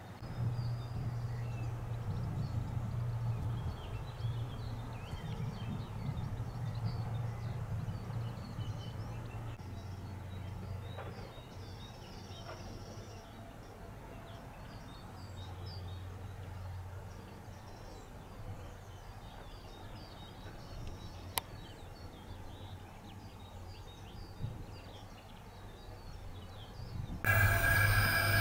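Countryside ambience of small birds chirping over a low, wavering hum. About a second before the end, a train sound starts abruptly and loudly with several steady high tones, a train horn sounding.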